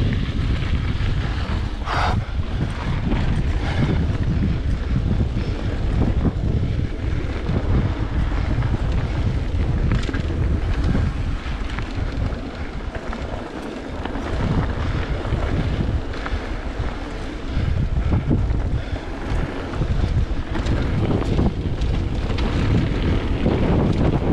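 Wind rushing over the camera microphone of a mountain bike descending a dirt trail, with the rumble of the tyres on the dirt and occasional sharp clicks and knocks from the bike. The rush eases briefly about halfway through.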